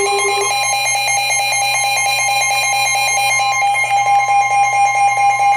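Emergency Alert System attention signal: a loud, steady two-tone alarm with a rapid pulsing flutter. A lower tone under it stops about half a second in.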